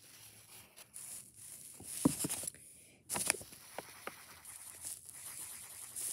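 Lined paper rustling and crinkling as it is handled and pressed flat on a board, with a few light taps and clicks.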